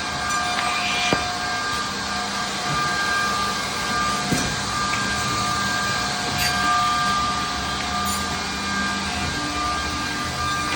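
Edge banding machine running with a steady motor whine made of several constant tones. Two sharp knocks come about one second in and about four seconds in.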